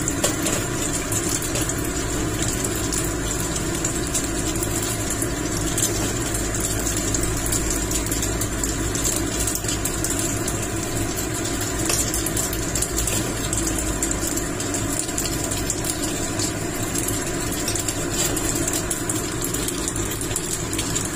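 A steady machine hum, even throughout, with a few faint clicks.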